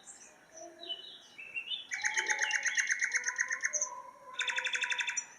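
Small birds chirping: a few short chirps, then two runs of fast, rapid trilled calls.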